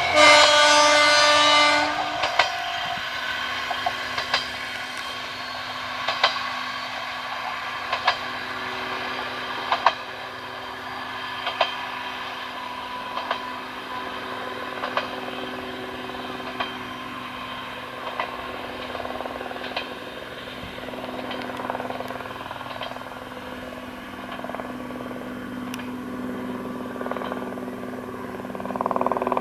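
Diesel railcar's horn sounds once for under two seconds. After it the railcar runs steadily as it draws away, with a short sharp click about every second and a half.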